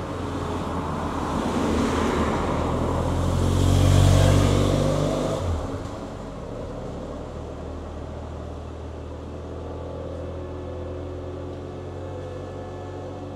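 A car driving past, growing louder to a peak about four seconds in and fading away within two seconds. A steady low hum continues after it.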